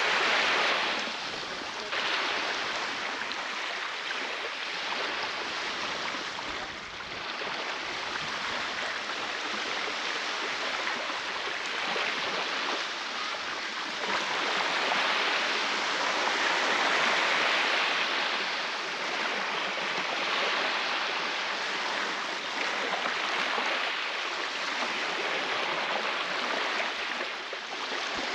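Baltic Sea surf washing onto the shore: a steady hiss of breaking waves that swells and eases every few seconds.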